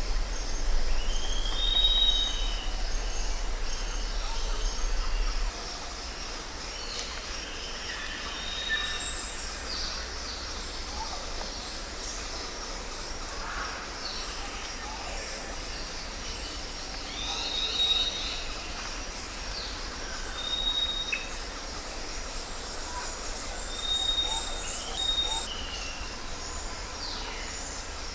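Jungle ambience: a steady insect chorus with birds calling over it in short whistled notes and quick glides, a few calls at a time. A low rumble underneath stops about five seconds in.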